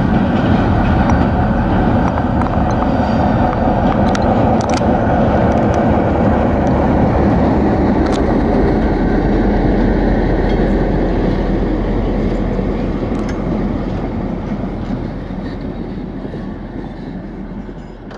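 EMD GR12 diesel-electric locomotive, with its two-stroke V12 engine, running past with a passenger train, followed by the coaches rolling by with occasional sharp wheel clicks over the rail joints. The sound eases off over the last several seconds and then fades out.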